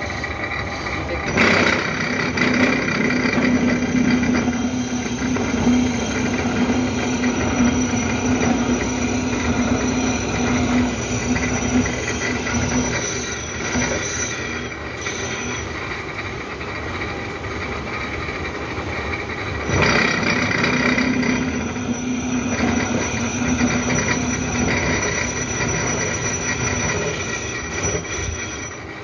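A horizontal milling machine's disc cutter cuts a tooth slot into a metal dog clutch blank, a steady mechanical cutting noise with a held pitched tone. The cut gets sharply louder about a second and a half in, eases off somewhat past the middle, and gets louder again about twenty seconds in.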